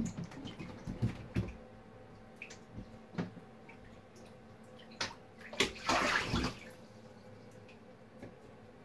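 A young Java macaque moving about in a partly filled bathtub: scattered knocks and small splashes of bathwater, with a louder splash lasting about a second around six seconds in.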